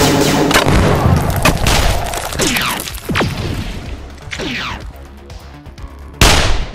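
Battle sound effects laid over background music: dense blasts at the start, several shots with a falling pitch through the middle, and one loud, sharp blast near the end.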